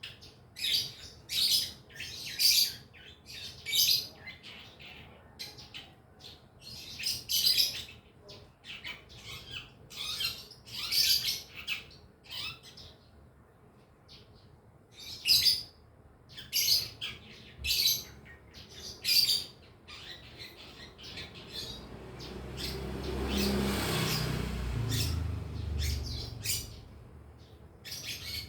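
Long-tailed shrike (cendet) giving scratchy twittering calls in short repeated bursts: a young bird practising its song. About three quarters of the way through, a low rumbling noise swells and fades over several seconds.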